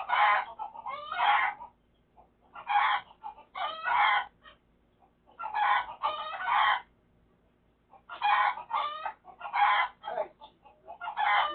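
A pet bird calling loudly over and over, harsh pitched calls mostly in twos, a new group every two to three seconds.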